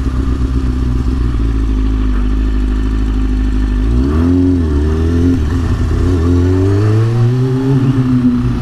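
Kawasaki Ninja 636 sport motorcycle's inline-four engine while ridden at low speed: steady at first, the revs dip and pick up again about four seconds in, then climb steadily and ease off slightly near the end.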